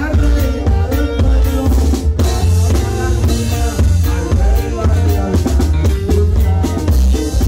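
A live norteño band playing a norteña medley, with the drum kit keeping a steady beat over a heavy bass line and saxophone and guitar in the mix.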